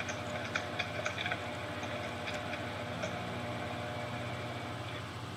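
Steady low background hum with a few faint clicks in the first second and a half.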